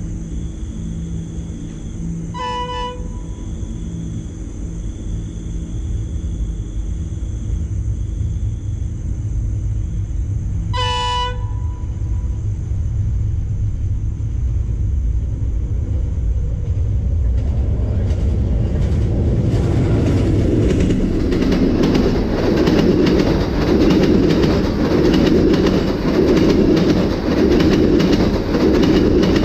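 Diesel train approaching: two short horn toots, a few seconds in and about a third of the way through, over a low engine rumble. From a little past halfway the rumble swells into the loud, rhythmic clatter of wheels on rails as the train comes close.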